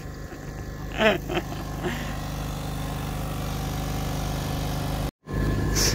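Small engine driving an air compressor, running steadily at a constant speed to feed air down a diver's breathing hose.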